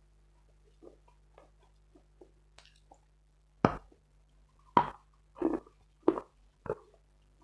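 Dry chalk crunching as it is chewed, close to the microphone. A few faint small clicks come first; then, a little over halfway in, five loud crunches about half a second apart set into a chewing rhythm.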